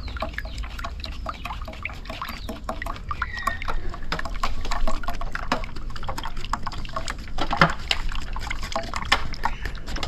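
A metal spoon scraping and clicking against a wire-mesh sieve as thick star apple juice is pushed through, with the strained juice pouring in a thin stream into a steel pot.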